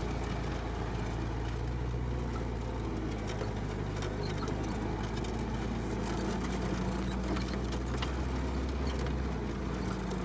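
Off-road vehicle's engine running steadily at low speed, heard from inside the cab, with a low hum under the general rattle of the cab. Near the end the low engine note changes and drops away.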